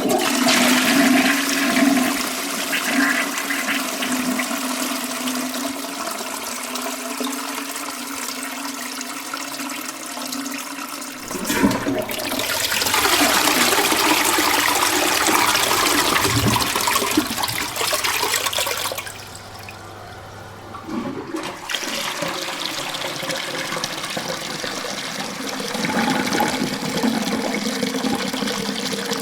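Toilets flushing: water rushing and draining down the bowl. About eleven seconds in a sharp knock of the flush handle starts a second, louder flush, which drops away briefly before the water rushes again.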